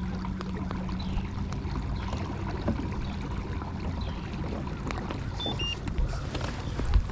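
Water moving around a plastic fishing kayak's hull, with scattered light knocks and clicks from the boat.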